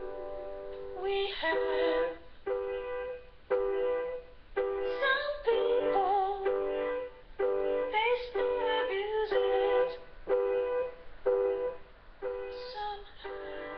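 Instrumental backing music: the same chord struck again and again in an even rhythm, with a melody line weaving above it for a few seconds around the middle.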